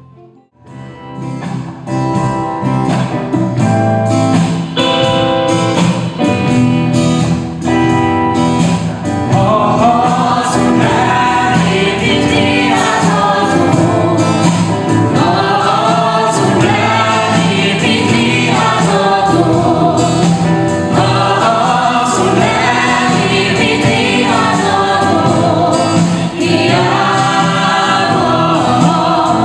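Live band performing a Christian worship song. It starts after a brief silent break with a rhythmic instrumental backing, and about nine seconds in several women's and men's voices join, singing together.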